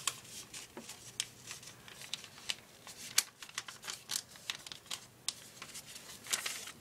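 A sheet of lined paper being folded and creased by hand, making scattered soft rustles and short crisp clicks. The sharpest click comes about three seconds in.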